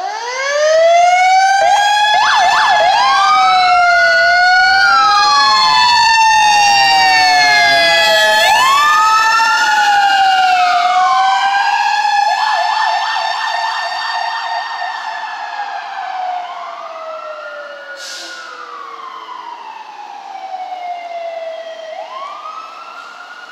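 Sirens of Burbank Fire Department's Engine 11 and Rescue 11 ambulance responding to a call. Two or more sirens wail together, their rising and falling tones crossing one another. About twelve seconds in they switch briefly to a fast yelp, then fade as the rigs drive away.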